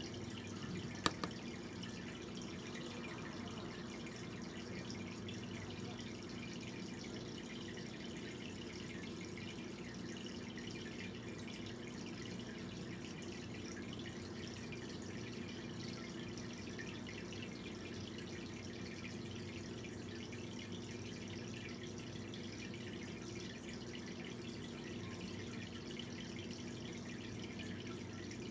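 Steady low background noise with a faint hum, and two sharp clicks close together about a second in.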